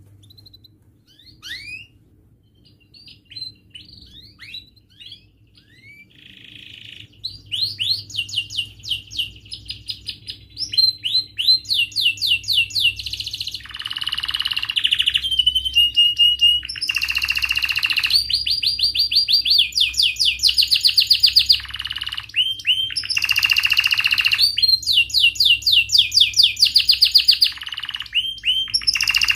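Domestic canary singing. A few scattered chirps open, then from about seven seconds in comes loud, continuous song of fast repeated notes and rolling trills, broken several times by harsh, scratchy phrases.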